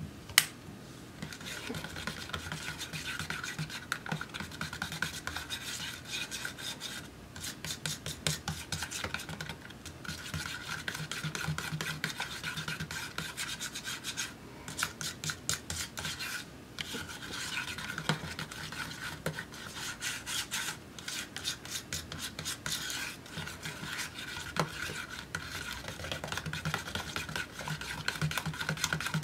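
Paint being stirred fast in a small plastic cup with a stirrer: a continuous rapid scraping against the cup's sides and bottom, broken by a few short pauses. A single sharp click near the start is the loudest sound.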